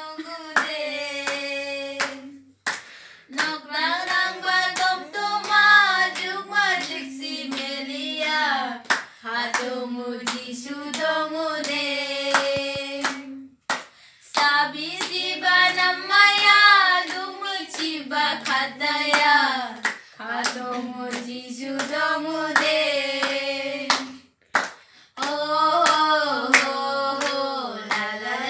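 A small group of girls singing a song together, keeping time with hand claps, with brief pauses between phrases.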